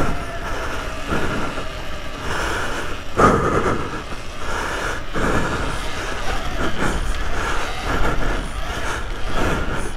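Electric off-road motorbike ridden over a dirt track's whoops: motor whine rising and falling with the throttle over tyre and chain noise and the rattle of the bike over bumps, with one hard knock about three seconds in.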